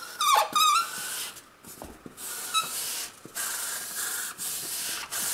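A fat marker scribbling back and forth on a cardboard box, a run of hissing rubbing strokes with a couple of short squeaks, as a printed logo is coloured in.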